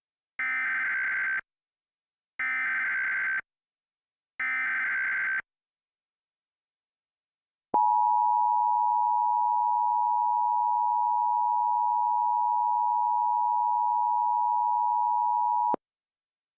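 Emergency Alert System SAME header: three one-second bursts of digital data tones about a second apart. After a short pause comes the EAS two-tone attention signal, held steady for about eight seconds and then cut off sharply.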